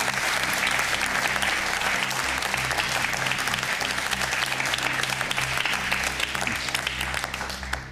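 Studio audience applauding, a dense patter of many hands clapping over steady low background music. The applause dies away near the end.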